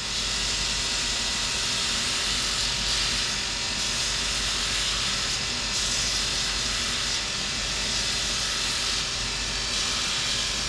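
Cobbler's shoe finishing machine running with a steady hiss as a leather sandal heel is held against its spinning wheel to finish it off. It comes up to speed in the first second.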